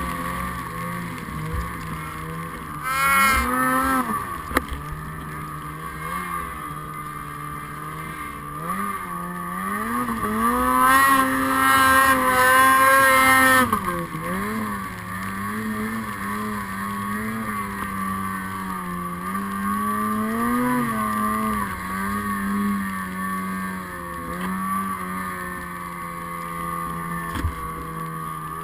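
Snowmobile engine revving up and down while ploughing through deep powder. There is a quick burst of throttle about three seconds in, and a long high-revving pull from about ten seconds in that drops off sharply near fourteen seconds. After that the engine runs at lower, wavering revs.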